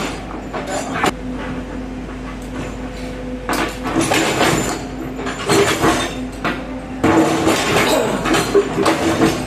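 Heavy earthmoving machine's diesel engine running steadily, with scattered metallic clinks and clanks, thicker in the second half.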